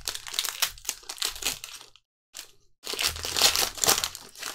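Foil trading-card pack wrapper crinkling as gloved hands tear it open and pull the cards out, in two bouts with a short break between them.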